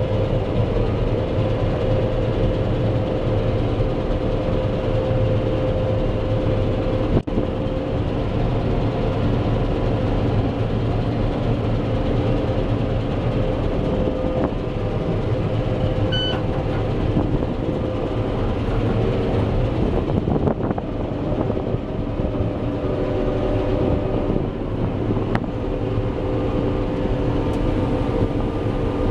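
Claas Lexion 460 combine harvester running steadily while harvesting wheat: a constant heavy engine and threshing-machinery drone with a steady whine. A short electronic beep sounds about halfway through.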